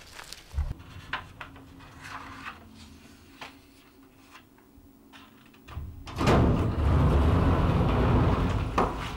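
Light steps and a faint steady hum, then about six seconds in a lift's sliding doors opening with a loud, steady noise that lasts about three seconds.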